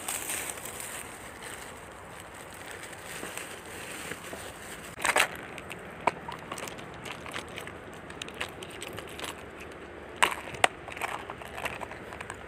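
Irregular crackling and clicking of gear being handled over dry leaf litter, including a clear plastic tackle box. There is a louder crunch about five seconds in and two sharp clicks near the end.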